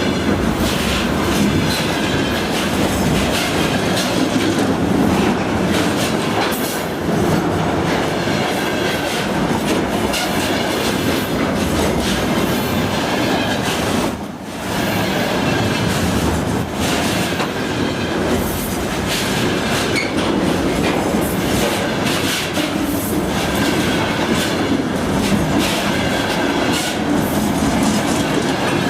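Freight train of container wagons rolling steadily past, with continuous wheel-on-rail noise and the clickety-clack of wheels over rail joints. The noise dips briefly about halfway through.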